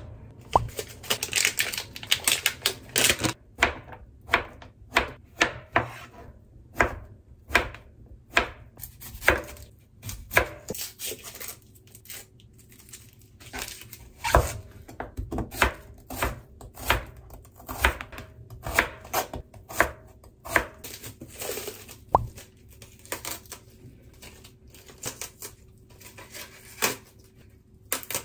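Kitchen knife chopping vegetables, among them an onion, on a plastic cutting board: a long run of sharp, irregular knocks, about one or two a second.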